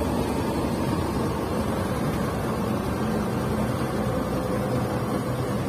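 Diesel engine of a Volvo dump truck running steadily under way, heard from inside the cab with road noise.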